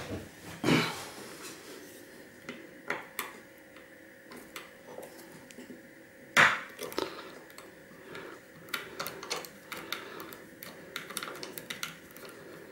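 A knife blade prying and scraping at a hard drive's head actuator and magnet: scattered small metallic clicks and scrapes, with one sharper click about halfway through.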